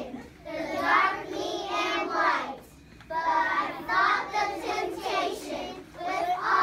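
A class of young children singing together in unison, in phrases of two to three seconds with short breaks between them.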